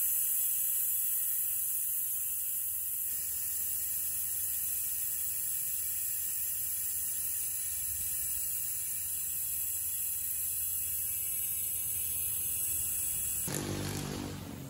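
Refrigerant hissing out of a Nissan Quest's AC low-pressure service port through a recharge-kit hose, a steady high hiss that slowly fades. It is being bled off because the gauge reads in the yellow, which the owner takes for too much refrigerant in the system. The hiss gives way near the end to a lower, different sound.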